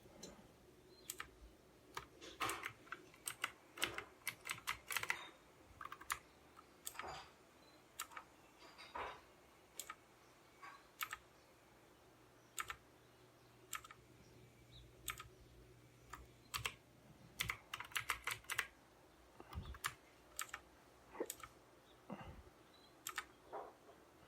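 Pichau P531 mechanical keyboard with clicky Outemu Blue switches, keys pressed in irregular bursts and single strokes, each a sharp click.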